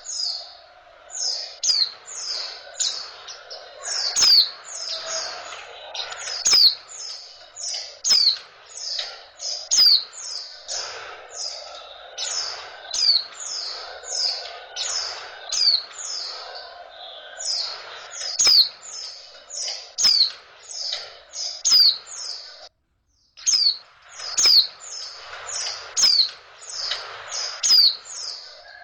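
Female white-eye (pleci) calling in a rapid run of short, high, downward-sliding chirps, about two to three a second, with a brief break about three-quarters of the way through. These are the female calls used to bring male pleci into breeding mood and set them singing.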